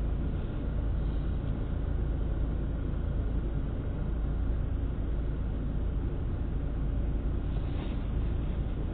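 Steady low rumble of a car driving, engine and road noise heard inside the cabin through a dash camera's microphone.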